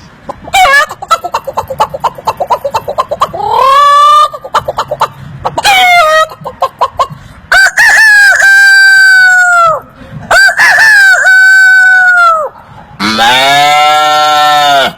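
A man imitating a chicken with his mouth: a run of quick clucks, then two long rooster-like crows that fall away at the end, followed by a lower drawn-out animal call near the end.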